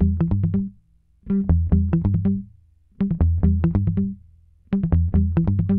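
Background music: short rhythmic phrases of quick plucked notes over a low bass, each cut off by a brief silent pause.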